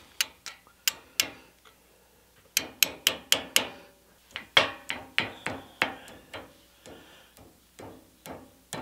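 Brass-headed hammer striking a steel punch set against a cement mixer's wheel-hub axle end: sharp metallic taps in quick runs of four or five, lighter and sparser toward the end, working the cotter pin in the axle nut free.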